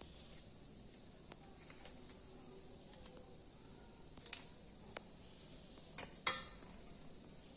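Light clicks and clinks of nursing equipment being handled and set out, such as a steel instrument tray, covered bowl and glass. A few sharper knocks come about four and six seconds in.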